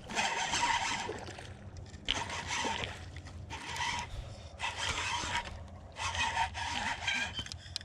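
Fishing reel being cranked in about six quick bursts, a whirring, scraping sound, while a hooked bass is reeled in.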